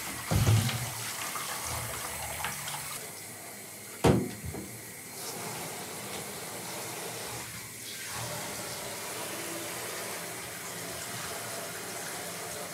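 Tap water running steadily, with two dull thumps, one about half a second in and one about four seconds in.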